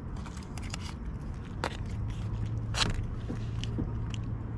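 Close-up eating noises: chewing and handling of food and its packaging, heard as scattered clicks and crackles. A low steady hum comes in about two seconds in.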